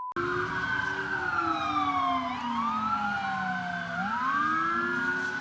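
Several emergency-vehicle sirens wailing at once, their pitches slowly rising and falling and crossing one another.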